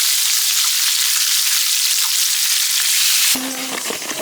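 Food sizzling as it fries in hot oil: a loud, even hiss that cuts off suddenly about three seconds in, followed by quieter clicks and faint tones.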